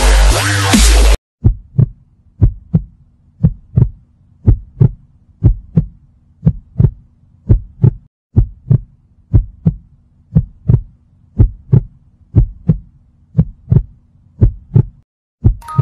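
Electronic dubstep music cuts off about a second in. A heartbeat sound effect follows: a slow double thump about once a second over a low steady hum, breaking off briefly near the end as chime-like tones come in.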